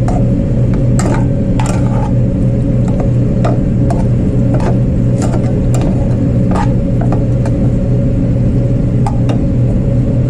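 Metal tongs clinking and scraping against a stainless steel bowl as chopped steak is stirred through cheese sauce, about a dozen light, irregular clicks. Under them runs a loud, steady, low mechanical hum.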